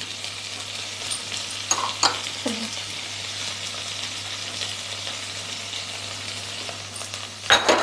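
Chopped vegetables sizzling in melted butter in a nonstick pan, a steady frying hiss. A few light clicks of a spatula against the pan about two seconds in, and louder scraping and knocking of the spatula as the vegetables are stirred near the end.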